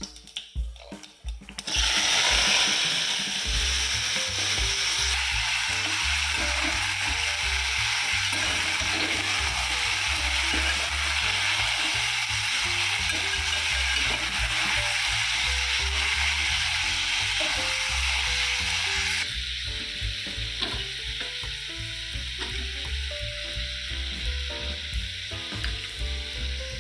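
Cubed eggplant and green peas sizzling loudly in hot oil in an aluminium pot as they are stirred with a ladle. The sizzle starts suddenly about two seconds in and eases to a softer hiss after about nineteen seconds. Background music with a steady beat plays underneath.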